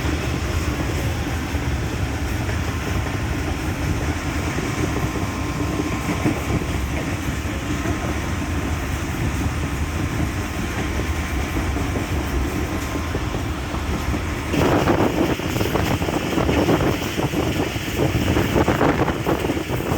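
Rumble of a moving passenger train heard from on board, steady at first. About fifteen seconds in it grows louder, with a dense rattling clatter.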